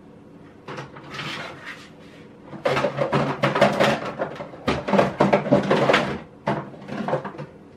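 Kitchen handling noises: packaging and containers rustling and clattering, densest in the middle few seconds, over a steady low hum.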